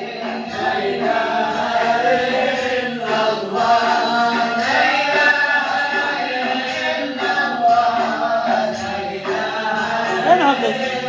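Several voices chanting a devotional mawlid song together, the melody held in long, gliding lines.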